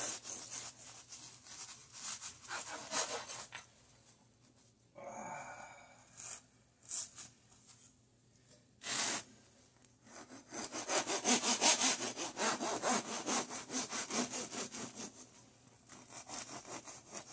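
Serrated bread knife sawing through a crusty loaf of bread in quick back-and-forth strokes, the teeth rasping on the crust. The strokes stop for a few seconds, with a few short knocks as a slice is lifted away, then start again on the next slice.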